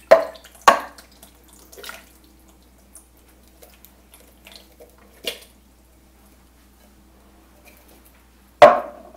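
Canned pineapple chunks and juice dropping from a metal can into a ceramic slow-cooker crock in a few wet plops. Sharp knocks come from the can against the crock: two near the start, and the loudest, with a short ring, near the end.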